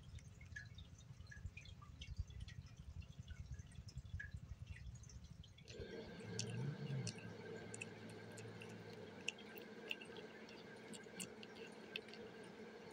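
Kitten eating wet cat food: faint, wet clicks and smacks of licking and chewing, scattered irregularly over a low background hum.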